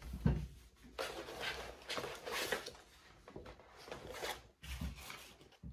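Rustling and scraping of things being handled and moved about, in a series of short, irregular bursts.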